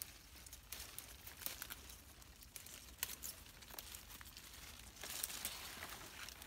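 Leaves rustling and crinkling as young shoots are picked by hand from a bush, with scattered sharp snaps of stems breaking off. The rustling grows denser about five seconds in.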